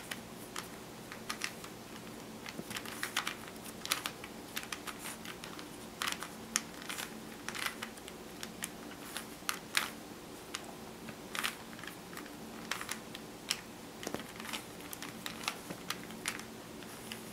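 Plastic 3x3 Rubik's Cube being turned by hand: quick, irregular clicking and clacking of the layers rotating, several clicks a second, as the middle-layer edge pieces are put in place.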